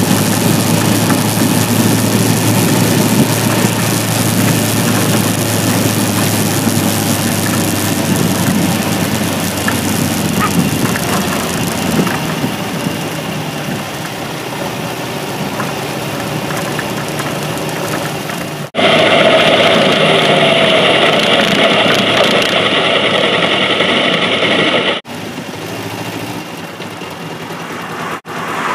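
Kawasaki Ninja 500's parallel-twin engine running steadily while riding, with wind noise on the microphone. About two-thirds of the way through, the sound cuts abruptly to a louder, brighter stretch of engine and wind for about six seconds, then cuts back to a quieter run.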